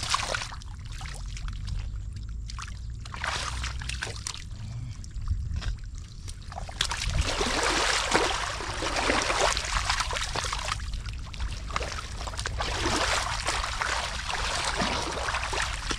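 Shallow water splashing and sloshing as hands and bodies work through water and moss, a busy irregular stirring that grows louder about seven seconds in, over a steady low rumble.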